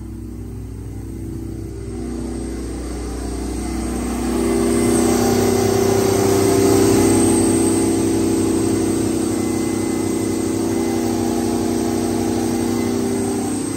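Detroit Diesel 12V149, a two-stroke V12 diesel, running a generator set steadily at its governed 1800 rpm. It grows louder about four seconds in, heard from inside the engine enclosure.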